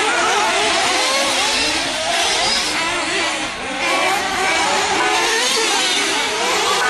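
Several nitro RC truggies' small glow-fuel engines whining at high revs, overlapping at different pitches that keep rising and falling as the cars accelerate and brake round the track.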